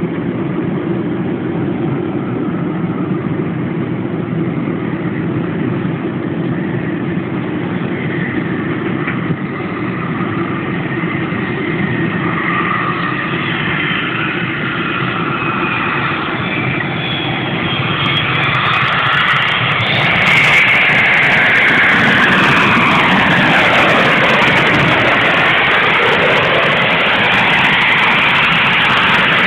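Boeing 727-200 jet engines heard over a steady low rumble, with a whine that grows louder and higher from about midway. Near the end of the first two-thirds it gets louder still, and its whining tones sweep down in pitch and then climb again as the airliner comes by and lands.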